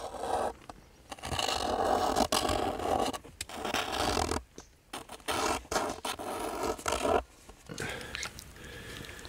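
Scraping and rustling in several bursts of one to two seconds each, with short pauses between them.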